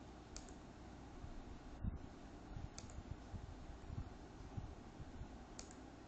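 Faint, irregular clicking and soft knocks from someone working the laptop's controls, the strongest knock about two seconds in.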